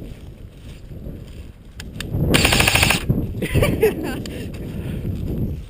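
A burst of rapid, evenly spaced clicks lasting under a second, a little over two seconds in, like an airsoft gun firing on full-auto. It is followed by rustling and a brief voice sound.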